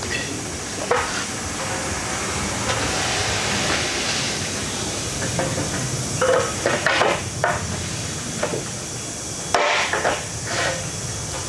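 A handful of light metal knocks and clinks, some with a brief ring, as aluminium door profiles are tapped and handled, over a steady hissing machine noise. The sharpest knock comes about nine and a half seconds in.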